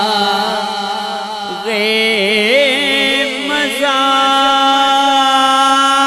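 A male naat reciter singing a drawn-out wordless melisma that winds up and down in pitch, giving way about four seconds in to a steady held drone.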